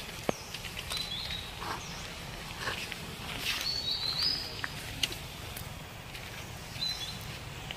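Long-tailed macaque giving high, thin squeaks: three brief calls near the start, in the middle and near the end, the middle one the longest and stepping up in pitch. Scattered clicks and rustles lie between them.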